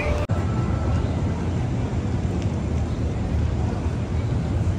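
Steady low rumble of city street noise. It is broken by a brief dropout about a quarter second in.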